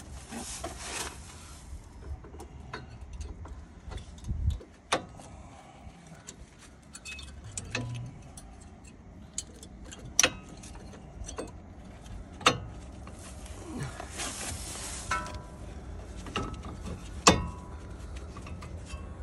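Metal tools and brake parts clinking and knocking during a brake pad change, with scattered sharp clicks, a few ringing briefly, the loudest about ten, twelve and seventeen seconds in. Two stretches of hiss come near the start and about two-thirds through.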